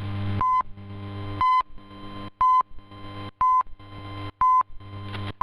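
Time-signal pips in a shortwave broadcast received off air: five short beeps near 1 kHz, one a second, with a longer beep beginning at the very end, marking the top of the hour before the Voice of Turkey transmission. A steady hum and hiss of shortwave reception sit under and between the pips.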